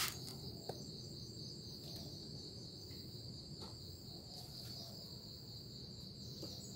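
Steady, faint, high-pitched insect trill in the background, typical of crickets.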